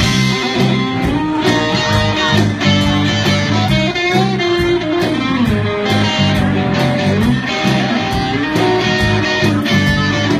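Live band playing an instrumental break between verses: an electric guitar lead with bent notes about four seconds in, over bass guitar and an electronic drum kit keeping a steady beat.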